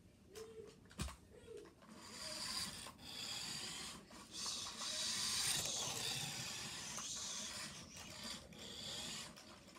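A toy remote-control car's small electric motor whirring in spurts as it is driven back and forth. There is a sharp click about a second in.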